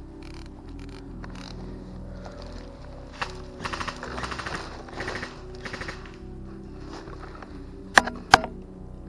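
Background music with bursts of rapid airsoft gunfire a few seconds in, then two sharp cracks near the end, which are the loudest sounds.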